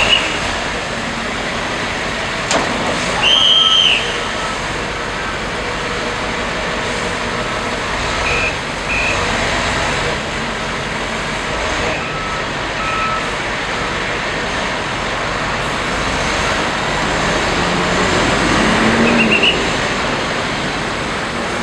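Heavy mobile cranes' diesel engines running in steady street traffic noise. A short high squeal sounds about three seconds in, and two short beeps follow around eight seconds in.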